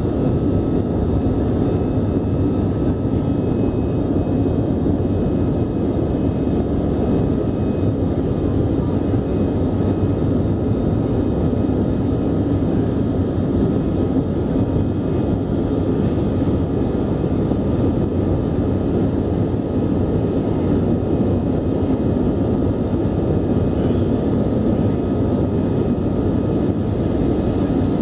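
Steady engine and airflow noise inside a jet airliner's cabin during the climb after takeoff: a low rumble with a faint steady whine above it.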